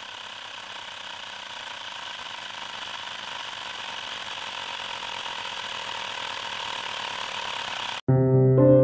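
Xiaomi Mi portable electric air compressor running steadily while inflating a car tire, a continuous mechanical rattling buzz that grows slowly louder. It cuts off abruptly about eight seconds in, and louder piano music starts.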